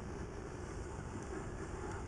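Steady wind and water noise on the microphone aboard a small boat, with a faint tick or two.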